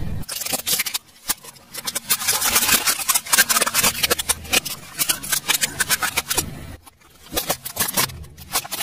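Car tyre rolling over objects and crushing them: a quick run of snaps, cracks and crunches as green beans, plastic cups of coloured liquid and an orange plastic toy break under the wheel, over a low engine hum. The crunching briefly drops away a little before the end, then picks up again.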